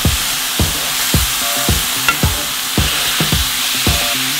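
Burger patties sizzling in a hot cast-iron skillet, a steady frying hiss, with a metal spatula working under them. A beat of background music thumps about twice a second underneath.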